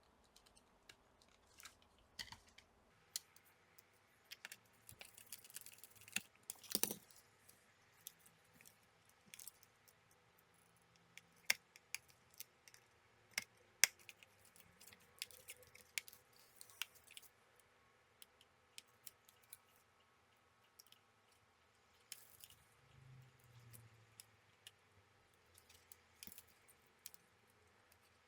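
Faint, scattered small clicks and light taps as a laptop's Wi-Fi card and its small parts are fitted by hand, with a few sharper clicks around the middle.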